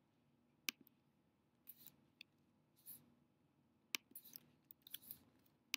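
Faint, sparse clicks and short soft rustles from a laptop's keys and trackpad being worked: three sharp clicks, about a second in, about four seconds in and at the very end, with brief scratchy rustles between them.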